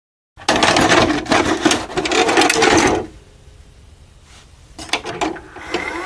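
A VHS cassette being pushed into a VCR: the loading mechanism clatters and whirs for about two and a half seconds, followed by a few clicks and a short rising tone near the end as the machine takes the tape.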